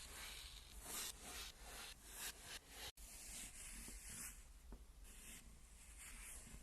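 Kinetic sand being cut and sliced with a blade: a series of soft, gritty scraping strokes, a couple a second, with a brief gap about three seconds in.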